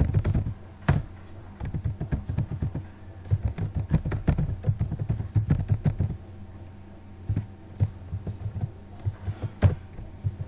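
Typing on a computer keyboard: quick runs of keystrokes broken by short pauses, with a few louder single key strikes. A low steady hum runs underneath.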